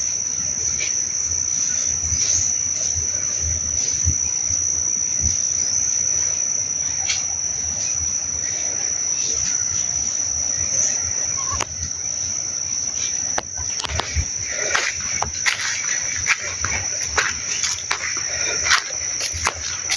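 A steady, high-pitched insect trill in the pasture, with irregular rustling and clicks joining it in the last third.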